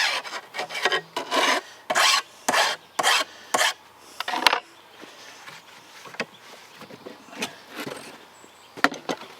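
Hand file rasping along the rail edges of a steel chainsaw guide bar, about two strokes a second, dressing off the sharp burr left from grinding; the strokes stop a little over four seconds in, followed by quieter handling with a few sharp clicks.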